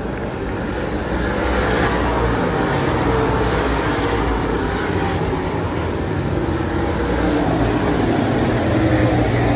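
Pure Stock dirt-track race cars' engines running at speed around the oval, a loud, steady mix of several engine notes that swells as cars pass, heard from the grandstand.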